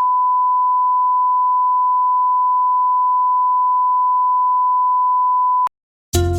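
A single steady, pure electronic beep tone, like a test tone, held at one pitch and level for about five and a half seconds before cutting off abruptly. After a short silence, music starts just before the end.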